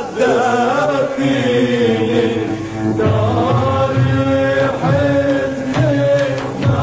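Arabic song: singing voices drawing out a wavering melody over a steady low instrumental backing.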